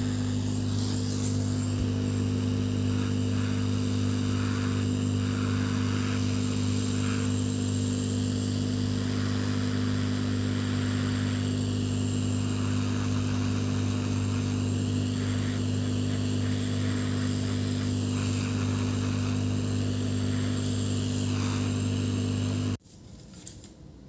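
Hot air rework gun blowing steadily to dry a washed circuit board: a steady blower hum with a hiss of air. It cuts off suddenly about a second before the end.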